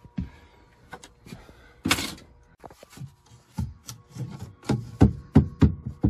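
Plywood board knocking and bumping against a wooden cabinet frame as it is handled into place: a few scattered knocks and a short scrape about two seconds in, then a quicker run of knocks over the last two seconds.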